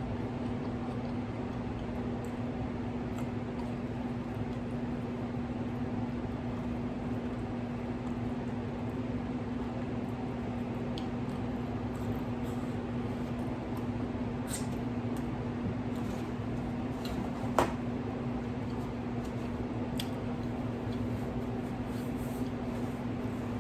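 Close-up chewing, with a few sharp wet mouth clicks and smacks from eating a fried wrap, over a steady droning hum with one held tone.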